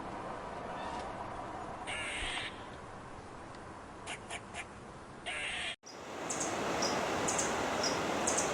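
A bird giving two harsh, raspy calls about three seconds apart, with a few short clicks between them. After a sudden cut near the middle, a steady rustling hiss with quick, high chirps repeating a few times a second.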